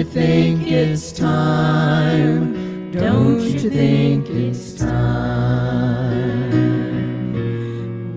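A small vocal group sings held harmony notes over piano accompaniment.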